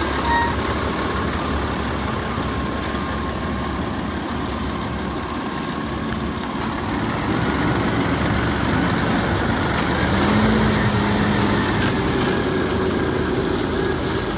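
Freightliner M2 garbage truck with a Labrie Automizer side-loader body, its engine running steadily, then revving and growing louder as the truck pulls away and passes close by in the second half.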